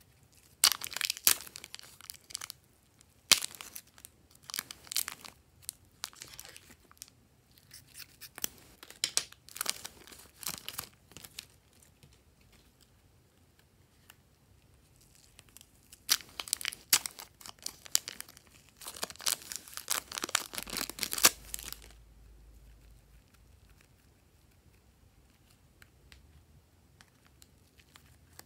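Small zip-lock plastic bags of soft clay being handled, crinkled and pulled open, in irregular bursts of crackling plastic rustle, with a quiet stretch near the end.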